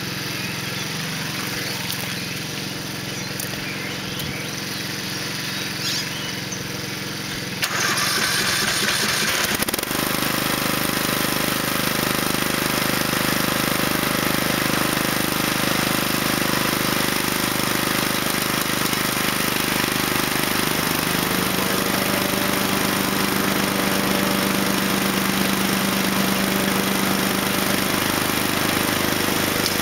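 A quieter engine idles. About eight seconds in, the homemade tow-behind mower's 14.5 hp Briggs & Stratton OHV engine starts with a sudden loud burst and then runs steadily and louder. Its note climbs and firms up about twenty seconds in as it is throttled up.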